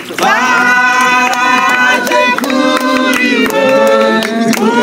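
Music with singing: long held sung notes that change pitch every second or so, starting suddenly.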